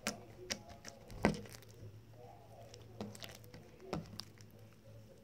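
Glossy slime being poked and kneaded by hand, giving irregular small clicks and squishy pops, the loudest about a second in and again near four seconds.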